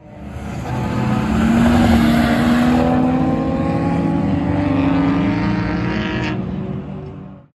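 Chevrolet Caprice 9C1's LT1 V8 at full throttle on a road course, loudest as it passes, then pulling away with its pitch climbing steadily until it breaks off about six seconds in.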